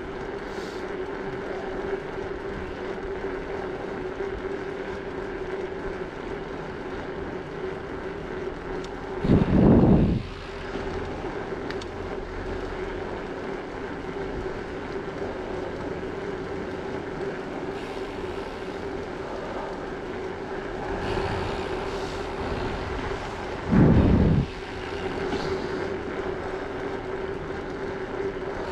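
Wind rushing over the microphone of a camera on a moving bicycle, with tyre noise on asphalt and a steady hum. Two short, heavy wind buffets break in, about ten seconds in and again about twenty-four seconds in.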